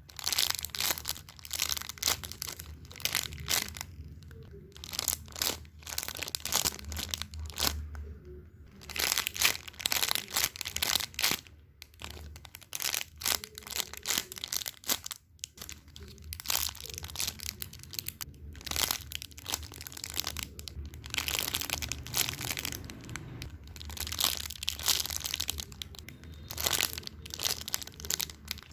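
Irregular crinkling and crunching, coming in bursts with short pauses between them.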